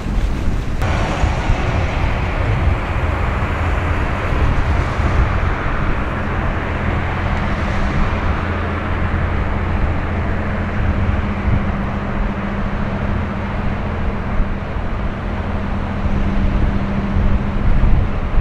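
Heavy-lift cargo ship passing under way, its engines giving a steady low drone. A rushing noise of wind and water sits on top and comes in about a second in.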